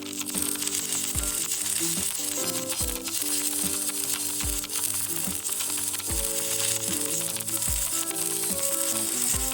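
Electric welding arc crackling and sizzling steadily, under background music with slow deep drum beats.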